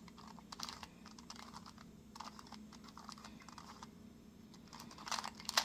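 Plastic 2x2 Rubik's cube being turned through an algorithm: quick, irregular clicks as the layers are twisted, bunching up near the end.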